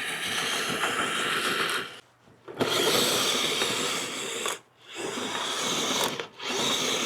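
Kyosho Blizzard 2.0 RC snowcat's electric motor, gearbox and tracks running as it crawls through deep snow, a grinding, clattering mechanical sound. It stops briefly three times as the throttle is let off and on.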